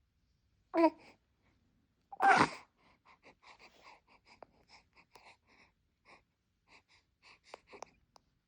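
Newborn baby giving a short squeak, then a loud sneeze about two seconds in, followed by a run of faint, quick little sounds.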